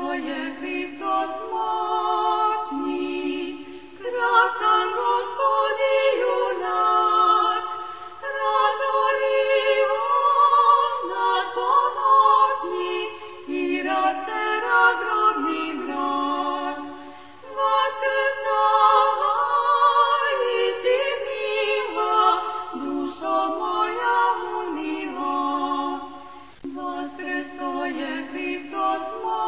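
An unaccompanied choir singing in long held phrases, with a short break between phrases every few seconds.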